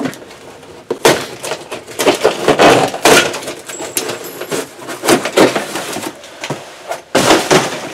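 Cardboard box being handled and opened: flaps and sides scraping and rustling, with sharp knocks of cardboard against the bench and against other cardboard. The loudest stretches come around three seconds in and near the end.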